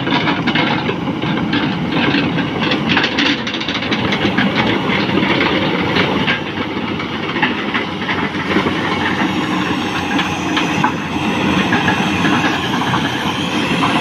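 Tata Hitachi EX210LC crawler excavator travelling on its steel tracks: the diesel engine runs loud and steady under a continuous clanking and squeaking of the track links.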